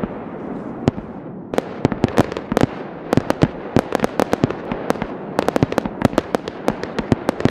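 Aerial fireworks going off: a rapid, irregular string of sharp bangs, several a second, over a constant crackling hiss.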